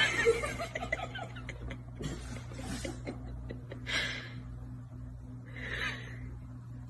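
Soft, breathy stifled laughs from a person, twice, about four and six seconds in, over a steady low hum.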